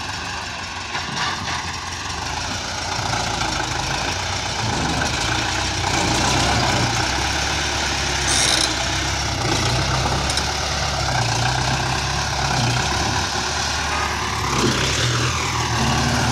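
Tractor diesel engine running under heavy load while hauling a trolley loaded with bricks; it grows louder and works harder about three seconds in. A short high hiss comes about eight seconds in.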